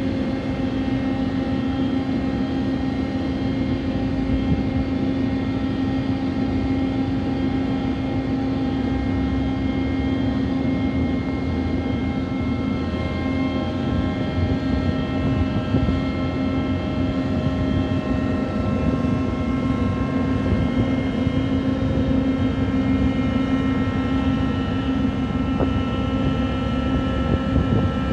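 Cargo crane machinery running steadily while its grab bucket is hoisted over grain in a ship's hold. It makes a constant drone with a hum on several steady pitches.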